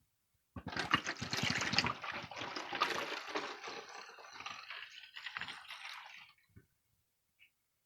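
Evapo-Rust rust remover being poured through a funnel into its container, splashing and gurgling. It starts about half a second in, is loudest for the first couple of seconds, then trails off and stops around six seconds in.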